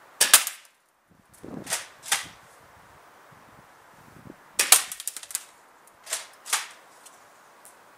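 Firepower MS Tactical tri-shot spring airsoft pump shotgun firing twice, about four and a half seconds apart. Each sharp shot is followed about a second and a half later by two quick clacks of the pump being racked back and forward.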